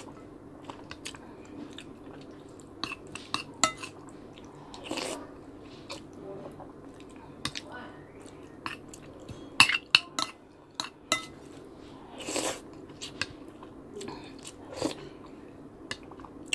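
Close-miked chewing and eating of sinigang and rice, with a spoon clinking now and then against the dishes; a few sharper clinks cluster about ten seconds in.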